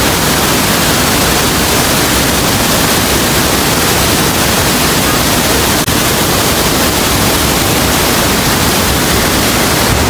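The Rhine Falls heard at close range: a loud, steady rush of falling and churning water.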